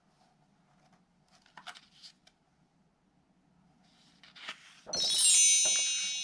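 Paper rustling and soft handling clicks as a picture-book page is turned, then a bright, high chime rings out about five seconds in and slowly fades.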